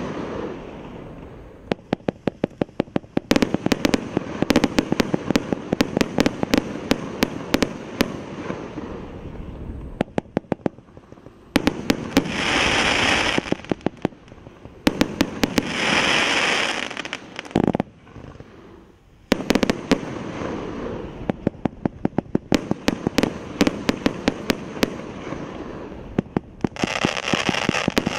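Primed Pyrotechnics 'Raise the Stakes' 232-shot compound firework cake (25 mm and 30 mm tubes) firing: fast runs of sharp shots, one after another, broken by two short lulls. Three times, for a couple of seconds each, a dense hiss rises along with the shots.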